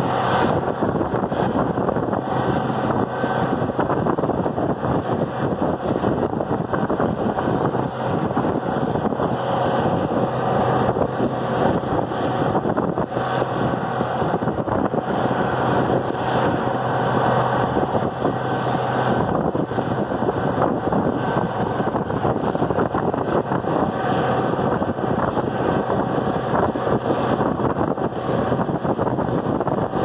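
Farmall diesel tractor engine running steadily as it tows a baler along the road, mixed with wind rushing over the microphone.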